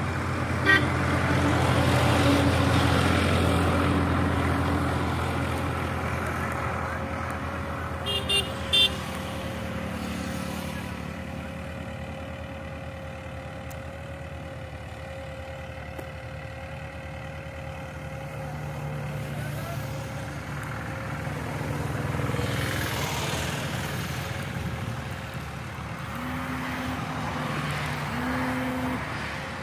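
Farm tractor's diesel engine running steadily as it pulls a tillage implement across a field, swelling and fading in loudness as the tractor moves. A few brief high-pitched sounds come through about eight seconds in.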